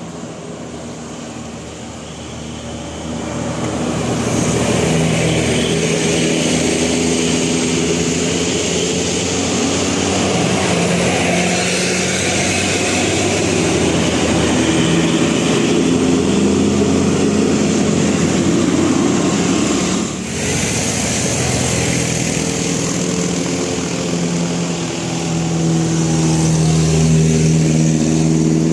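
Heavy road traffic: a large diesel engine, likely a bus, running with tyre and road noise, getting louder about four seconds in and staying loud.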